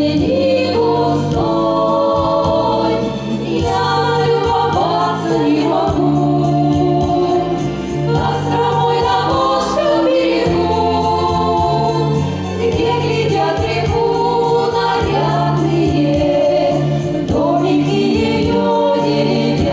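Voices singing a slow song about a home town, with held notes over accompaniment whose bass notes change every couple of seconds.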